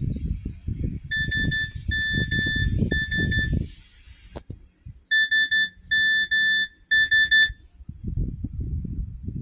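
Nokia Asha 300 mobile phone playing a beeping alert tone through its speaker: two sets of three short runs of rapid high beeps, with a sharp click between the sets. A low rumbling background noise lies under the first set and returns near the end.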